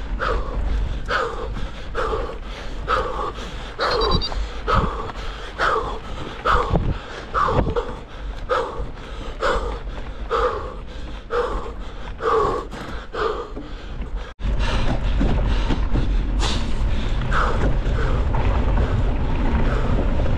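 Heavy, rhythmic breathing of a mountain-bike racer under hard effort, about one loud breath a second. About 14 seconds in it cuts to a steady rush of wind on the helmet microphone, with the breathing fainter underneath.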